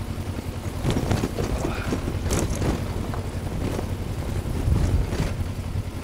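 Kawasaki Versys-X 300 motorcycle running steadily as it is ridden over rough dirt trail, with wind on the microphone and scattered knocks and clatter from the ride.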